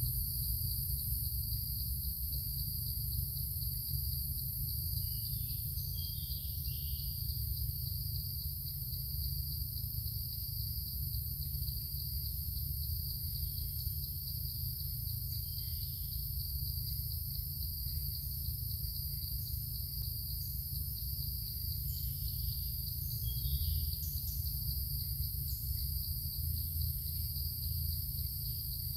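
Steady, high-pitched drone of an insect chorus in forest, over a low rumble, with a few short chirps now and then.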